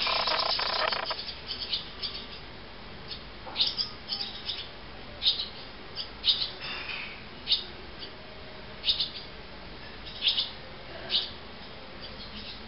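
Barn swallow nestlings begging in a loud, dense chorus of chirps as a parent feeds them, dying away after about a second; then scattered short, high chirps and twitters from the brood.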